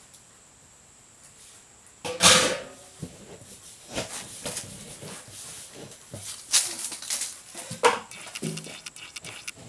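Clanks, knocks and rattles of galvanized steel cans and their lids being handled, the loudest a sharp clang about two seconds in, then several lighter knocks.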